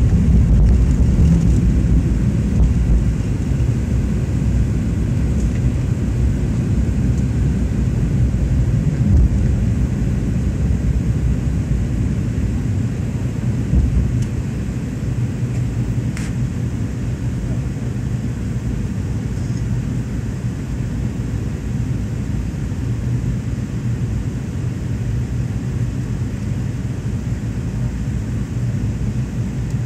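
Airliner's jet engines at takeoff power, heard inside the passenger cabin, over a deep rumble from the takeoff roll. The rumble is rough at first, then smooths out once the plane is airborne, leaving steady engine noise through the climb.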